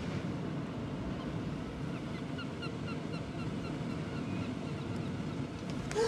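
Strong wind rushing in through an open window high up, a steady low rush. A run of faint short chirps comes partway through.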